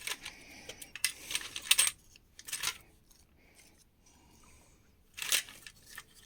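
Small metal hardware such as screws, nails and odd bits clinking and rattling as it is sorted by hand, in short clusters of clicks with quiet gaps between.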